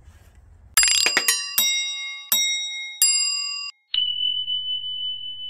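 Notification-bell sound effect: a quick run of bright chimes, then several separate ringing bell dings. About four seconds in, a steady high tone starts and holds.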